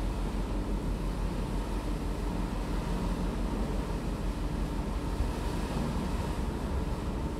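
Passenger ferry underway: a steady low engine rumble with a constant hum, mixed with the rush of wind and sea water.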